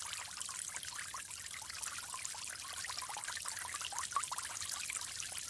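Water trickling and bubbling steadily, a dense patter of small bubbly blips.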